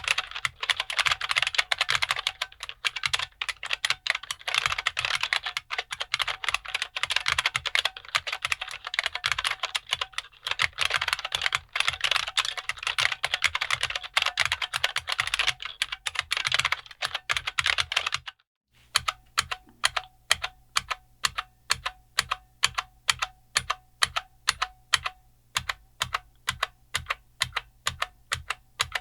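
IBM Model M2 keyboard with buckling-spring clicky switches being typed on: fast, continuous typing, then a short pause about 18 seconds in, then single keystrokes pressed slowly and evenly, about two a second.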